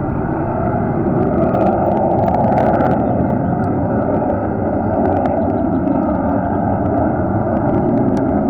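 Fighter jet engine noise, loud and steady, with crackling clicks about two to three seconds in.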